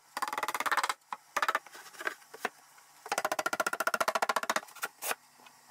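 Rapid runs of wooden knocks, many a second, as plywood panels are tapped together into their dado grooves during a dry fit: a short run at the start and a longer one about three seconds in.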